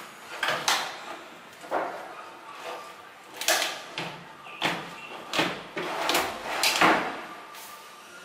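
A wooden kitchen-cabinet drawer on metal telescopic side slides is pushed in and pulled out again and again. Each stroke is a short rolling rattle of the slides that ends in a knock as the drawer reaches its stop, about nine times.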